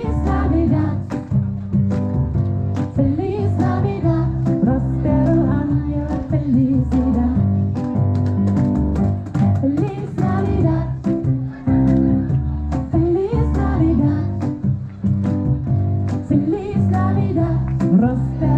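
A woman singing a Christmas song into a microphone, accompanying herself on an electronic keyboard.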